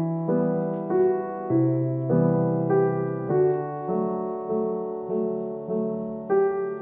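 Gentle solo piano background music, slow chords and notes struck about twice a second, each ringing and fading.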